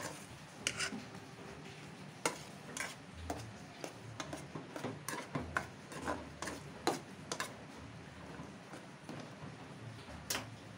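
A utensil stirring noodles in a metal saucepan, clinking and scraping against the pan's side and bottom in irregular taps, busiest through the middle, with one last knock near the end.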